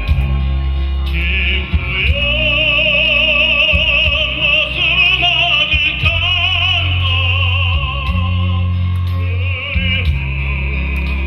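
Music: a slow melody of long held notes with wide vibrato, sung or played in an operatic style, over a steady bass accompaniment that changes note every second or two.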